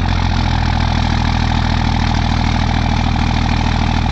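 24-valve Cummins turbo-diesel pickup engine idling steadily just after start-up, heard up close at its large 5-inch exhaust tip, with an even low pulsing beat.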